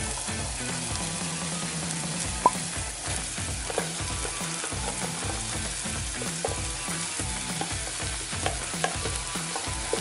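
Spicy chili and shrimp-paste sauce sizzling and bubbling in a pan over a gas flame, with a few light clicks and knocks, the sharpest about two and a half seconds in. Green beans are tipped into the sizzling sauce about halfway through.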